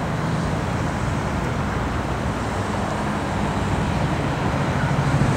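Steady engine rumble and road noise of a motor vehicle, heard from on board as it drives along.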